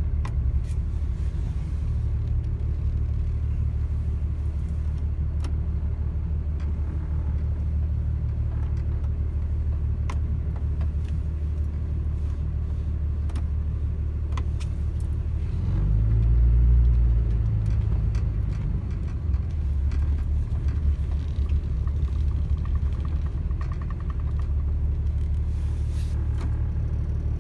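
Vehicle engine and road noise heard from inside the cabin: a steady low rumble while driving slowly, swelling briefly about sixteen seconds in. A few faint clicks are heard here and there.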